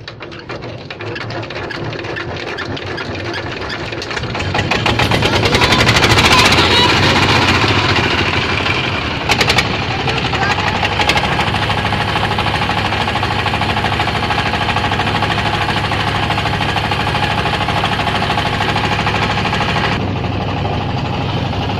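Hand-cranked single-cylinder diesel engine of a wooden country boat, just caught and running with a rapid knock. It speeds up about five seconds in, then runs steadily as the boat gets under way.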